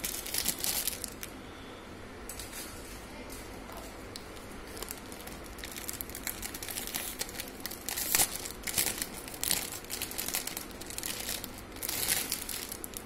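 Wrapping crinkling and rustling in irregular bursts as hands unwrap a set of bangles: one burst at the start, a short one a couple of seconds in, and busy handling through the second half.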